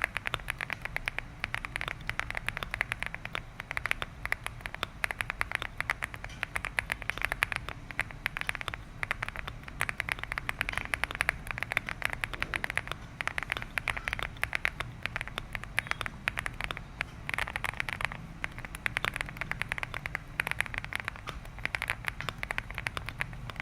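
Continuous fast typing on a Leobog Hi8 75% aluminium-frame mechanical keyboard: a steady stream of soft, muted, poppy keystrokes.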